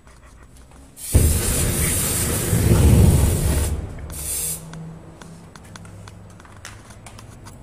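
Deodorant aerosol can spraying a lit jet of flame: a loud hissing rush with a deep roar beneath it, starting about a second in and lasting under three seconds, then one short second burst.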